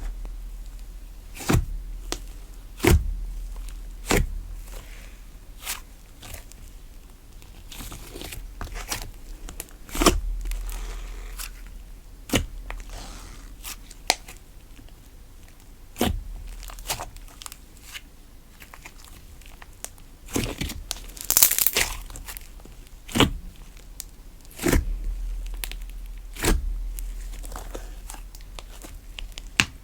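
Cream slime being poked, squeezed and stretched by hand, giving sharp wet pops at uneven intervals and crinkly, crackling stretches.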